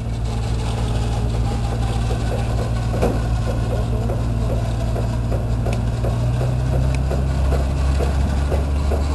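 A vehicle engine idling steadily with a low hum, its pitch shifting slightly about six seconds in.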